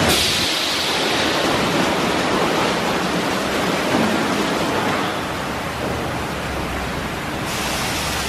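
Ryko SoftGloss XS rollover car wash spraying water and spinning its cloth brushes over a car: a steady rushing hiss, which brightens suddenly near the end.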